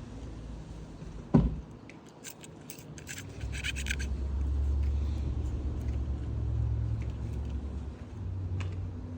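A single sharp knock, then light metallic clicking and clinking of small carburetor parts being handled, over a low rumble that swells in the middle and fades again.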